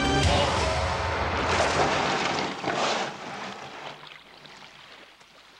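Music cuts off, and the rushing wash of surf takes over, swelling twice and then fading away to faint.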